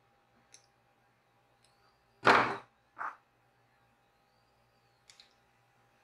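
Cutters snipping a short piece of heat-shrink tubing: one loud, sudden snip a little over two seconds in, a smaller click just after it, and a few faint handling clicks around it.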